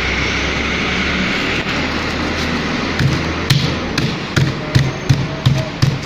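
Light knocks, about eight in a row at a couple a second, starting about halfway through over steady background noise: the electrolyte pack on a motorcycle battery being tapped so the acid drains into the cells during activation.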